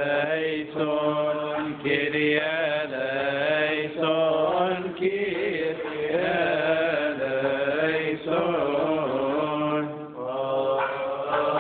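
Coptic Orthodox liturgical chant: male voices singing a slow melismatic hymn, with long notes that bend and turn over a steady low held note. Short pauses for breath come every few seconds.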